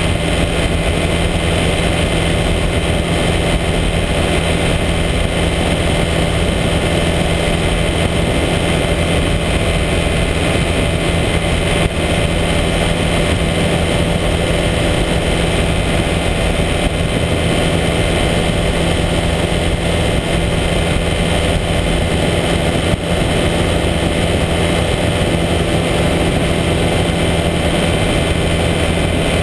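Engine and pusher propeller of a weight-shift microlight trike running steadily in level flight, a constant-pitch drone mixed with rushing wind noise.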